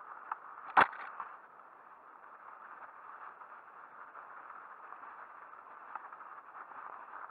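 Mountain bike rolling over a snow-covered trail: steady tyre and frame noise picked up by a handlebar-mounted camera, with one sharp knock from the bike a little under a second in and a few lighter clicks.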